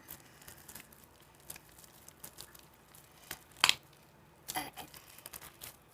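Slime being handled by hand: scattered faint sticky crackles and squishes, with one sharp click about three and a half seconds in.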